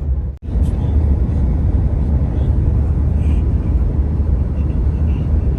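Steady low rumble of a car in motion: road and engine noise heard from inside the cabin. The sound drops out for a moment about half a second in, then carries on unchanged.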